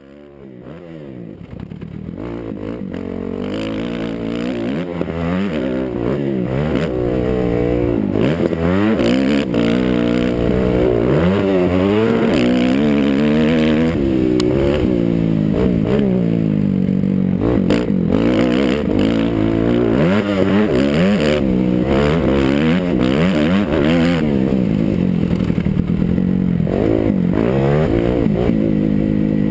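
2008 Kawasaki KX250F's single-cylinder four-stroke engine under hard riding, revving up and falling back again and again, heard from a helmet-top camera. It fades in over the first few seconds.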